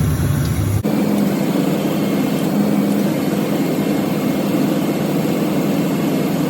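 2000 Ford F-250's engine idling with the A/C compressor running during a refrigerant recharge. About a second in, the sound changes abruptly: the deep rumble drops away and a steadier hum comes in. The compressor clutch is cycling on and off, a sign of low pressure in the line, and it is starting to hold on longer as the system fills.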